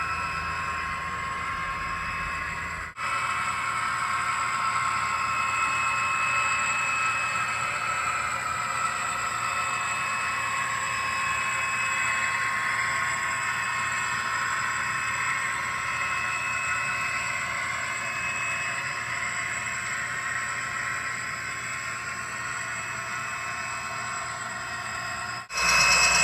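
HO-scale model train running on layout track: the locomotive's motor and gearing and the cars' wheels on the rails give a steady whine that slowly drifts in pitch. It breaks off abruptly about three seconds in and again near the end.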